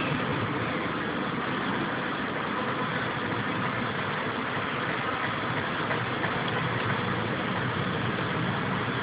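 Steady buzzing hum of many honeybees flying around the entrance of a hive, an even drone that doesn't let up.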